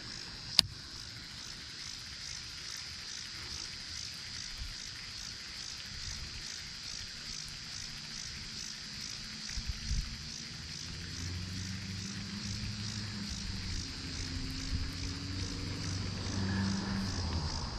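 Insects calling steadily in a high, pulsing chorus at about two pulses a second. One sharp click sounds about half a second in.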